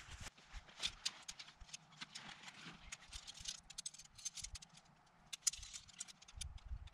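Shock-corded aluminium pole of a Hilleberg Akto tent being unfolded, its sections clicking and rattling against each other in quick, irregular knocks, busiest about halfway through.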